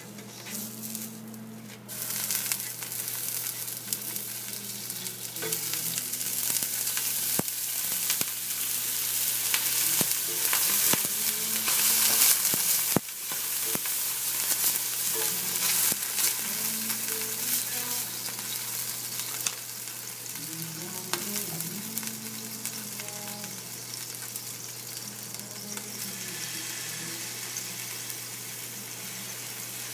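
Sizzling on the hot surface of a nonstick electric skillet as the wet pan is wiped down between dosas. The sizzle starts about two seconds in, is loudest around ten to thirteen seconds in, then drops suddenly and carries on steadier and softer.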